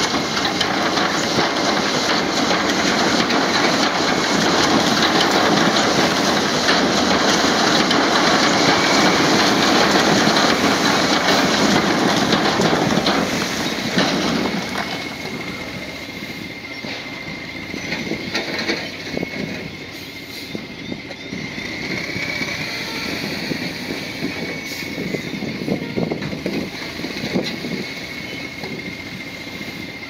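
Bulldozer working, its diesel engine running with track and earth-moving noise, loud for about the first fourteen seconds and then quieter. A thin steady high whine runs underneath.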